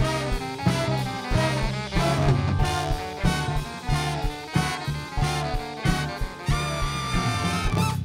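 Live horn band of trombone, baritone and tenor saxophones, with electric guitar and drum kit, playing a loud jazz-funk tune built on a repeating punchy low riff. The whole band cuts off together at the very end.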